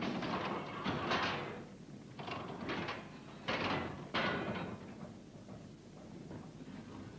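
A hand tool scraping and clanking over hot coke and iron in a gasworks retort house. It makes a run of short, harsh scrapes about a second apart, then goes quieter after about five seconds.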